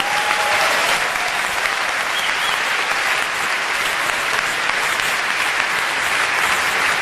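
Large theatre audience applauding steadily in response to a comedian's punchline.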